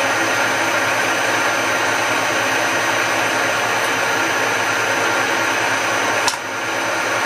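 A machine in a workshop running steadily with a loud, even hiss-like whir. There is a sharp click and a brief dip in level a little over six seconds in.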